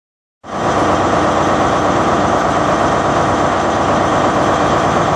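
Loud, steady noise with no clear pitch, fading in about half a second in and holding level: an intro sound effect.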